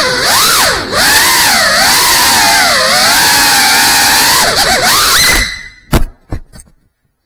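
GEPRC CineLog 35 ducted FPV quadcopter's motors and propellers whining. The pitch rises and falls quickly with the throttle. The whine cuts out about five seconds in, followed by one sharp knock and a few smaller clatters.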